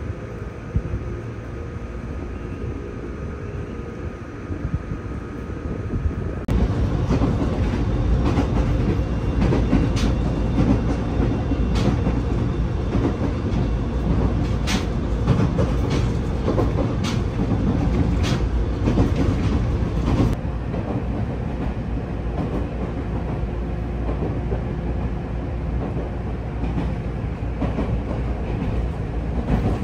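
Local train running along the track, a steady rumble with wheels clicking over rail joints. The sound gets suddenly louder about six seconds in and eases a little around twenty seconds in.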